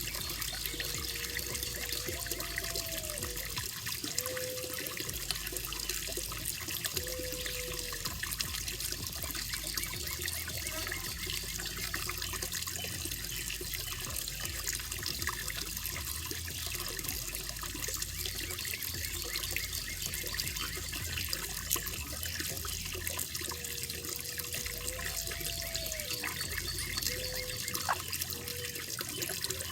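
Koi pond water running and trickling steadily. A short series of low pitched notes sounds twice, a few seconds in and again near the end.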